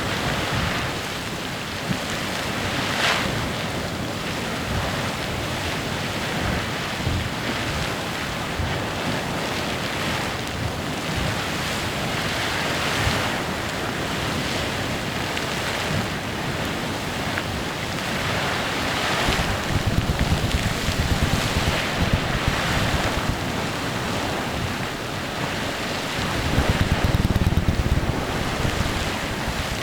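Clepsydra Geyser erupting: a steady hissing splash of water and steam that swells in louder surges now and then, with a deeper rumble in a couple of the surges.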